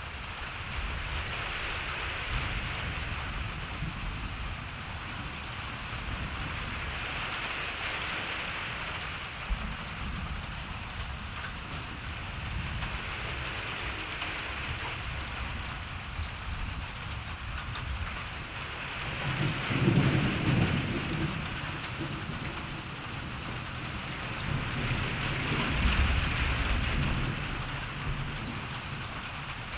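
Steady rain falling with thunder rumbling low underneath. Two louder rolls of thunder come about two-thirds of the way in and again a few seconds later.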